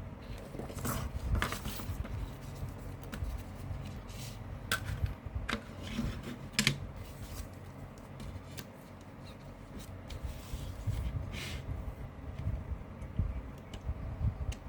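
A CD and its plastic case being handled: scattered clicks, taps and rubbing, a few sharper clicks standing out.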